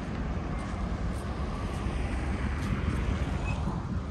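Steady low rumble of street traffic in the city.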